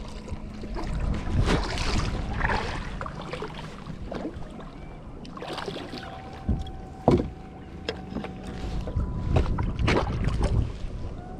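Water splashing at the side of a kayak as a hooked snook thrashes at the surface while it is landed, with wind on the microphone. Several sharp splashes, the loudest about seven seconds in.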